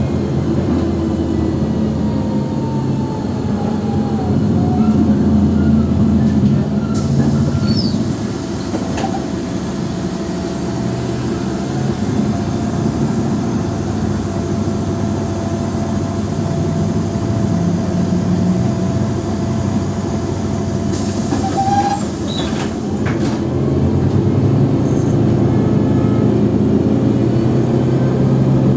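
Articulated city bus's Mercedes-Benz OM457hLA 12-litre inline-six turbodiesel running. It is loudest a few seconds in, eases off at about eight seconds and pulls harder again near the end. A thin whine falls in pitch during the first seconds, and a brief hiss comes a little after twenty seconds.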